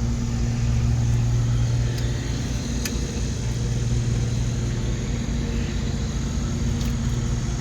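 Car engine idling steadily, a constant low hum with a pulsing rumble beneath it.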